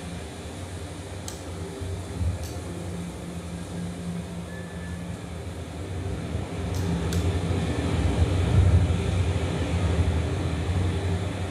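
A low, steady rumbling drone from an ambient sound installation, swelling a little about two-thirds of the way through. A few faint, short clicks sound over it, twice early and twice close together near the middle.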